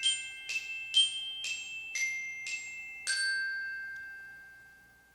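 A short intro jingle of bright struck bell-like notes, glockenspiel-style mallet percussion, playing a simple melody at about two notes a second. The last note rings out and fades away.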